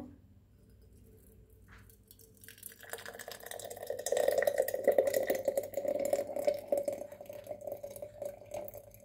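Thick sweet chili sauce pouring from a saucepan into a glass jar, starting about three seconds in. It is a splashy stream of sauce landing in the jar, with a hollow tone from the jar as it fills.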